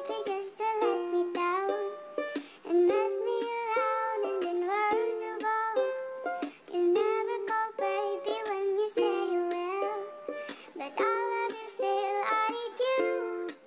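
Background music: a light melody of short plucked-string notes, stepping up and down in pitch.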